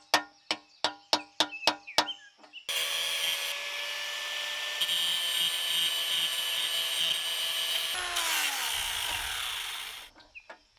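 A quick run of sharp metallic taps, about four a second, each with a short ring, as on a socket or bolt. Then a handheld power tool runs steadily for about five seconds and winds down with falling pitch over the next two.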